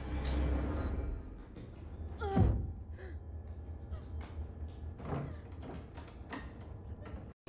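Horror film soundtrack: a low drone, then one loud falling sweep about two and a half seconds in, followed by a run of irregular knocks and thuds on a door.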